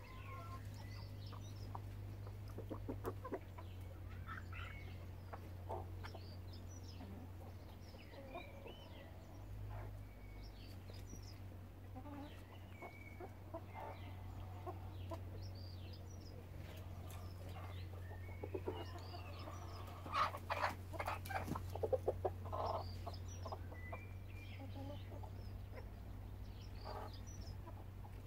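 A small flock of chickens, hens and a rooster, clucking on and off as they forage, with a louder run of quick clucks about two-thirds of the way through. A steady low hum lies underneath.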